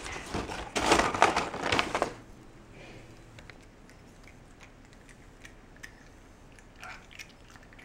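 Close crinkling and rustling for about two seconds, then near quiet with a few faint ticks.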